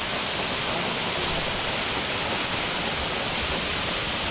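Waterfall pouring over a rock face into a rocky pool, a steady rush of falling water.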